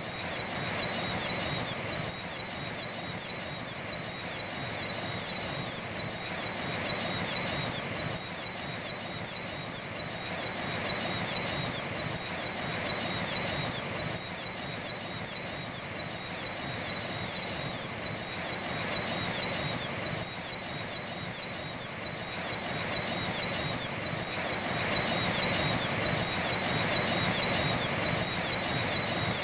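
A flock of seabirds calling without pause, many short high chirps overlapping, over the wash of waves that swells and fades every several seconds.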